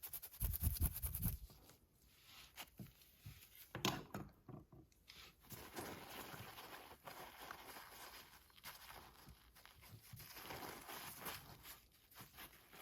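Toothbrush bristles scrubbing a small CNC router bit wet with kerosene and oil: faint, irregular brushing and scratching strokes, with a few low bumps from handling in the first second or so.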